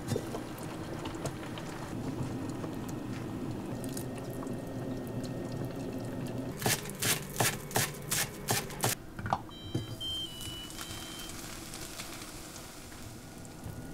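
Seaweed soup bubbling at a simmer in a cast-iron pot as the lid is lifted off with a light clink. About two-thirds of the way through, a quick run of about eight knocks comes as a spatula stirs the soup against the pot.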